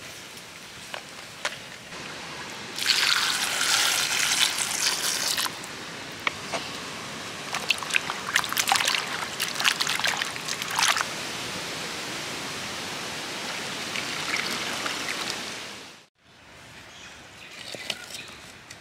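Water splashing and sloshing as a hand washes cut moringa drumstick pods in a metal bowl, with many small knocks of the pieces against the bowl and a steady stretch of trickling water. It cuts off suddenly about three-quarters of the way through, leaving quieter sound with a few light knocks.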